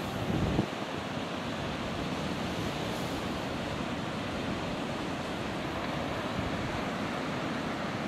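Ocean surf breaking on rocks below a sea cliff, a steady wash of waves, with a few gusts of wind on the microphone in the first half-second.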